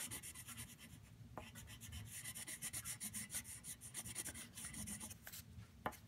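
Watercolour crayon scribbling back and forth on paper: quick, repeated, faint scratchy strokes as a small area is coloured in pink.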